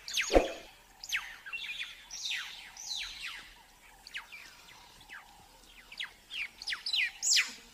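A flock of weaver birds chattering: many quick, high chirps that sweep downward in pitch, overlapping without pause. About half a second in there is a short, loud low thump that drops in pitch.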